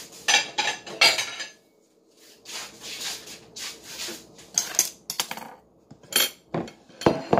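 Kitchen clatter: a plate and utensils clinking and knocking against the counter and cutting board in scattered sharp strokes, loudest in the first second and a half and again near the end.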